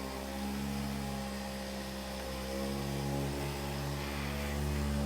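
A steady low electrical hum with a buzz on top of it, holding even throughout.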